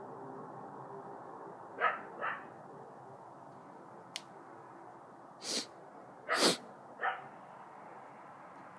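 Short animal calls, three times (two close together near the start, one later), over a steady background hum. Two louder, noisy hissing bursts come around the middle, and there is a single sharp click.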